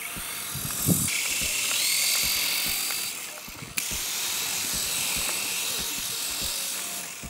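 Toy radio-controlled helicopter's small electric motor and rotors spinning with a high whirr and whine. The whirr starts about a second in, dips a little past three seconds, picks up again with a click, and carries soft scattered ticks. The helicopter hovers only just off the ground, short of lift in the thin air.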